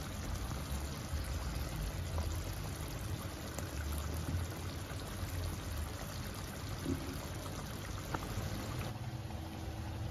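Mutton curry simmering in a pan with a steady soft hiss, while a thin stream of lemon juice dribbles into it. The hiss drops away about nine seconds in.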